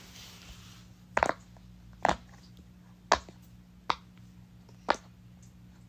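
Bubbles of a silicone rainbow pop-it fidget toy being pressed one at a time: five short pops, about a second apart.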